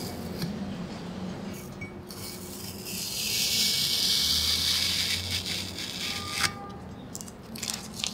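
A cloth rubbing briskly over the polished steel blade of a cast-iron cabinet scraper plane. Before it, the blade scrapes lightly against the plane body; after it comes a sharp metallic tink with a brief ring, then a few small knocks near the end as the tool is handled.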